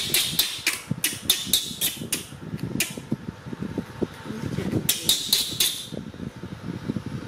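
Baby macaque crying with short, shrill screeches, several a second, in a run over the first three seconds and a second short run about five seconds in, as it is being dressed.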